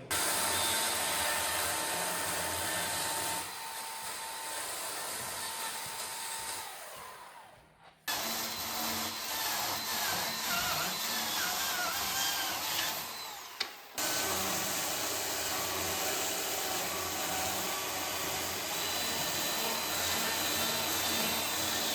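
Chainsaw running steadily while cutting into a wooden log. It drops off and stops, then restarts abruptly about 8 s and 14 s in.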